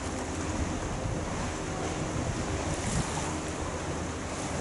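Wind buffeting the microphone over choppy water, with the steady low hum of a Red Jet high-speed catamaran ferry's engines as it passes. A gust knocks on the microphone about three seconds in.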